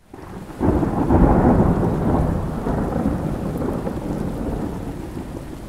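Thunder rolling over steady rain: a deep rumble that swells about half a second in and slowly dies away while the rain keeps hissing.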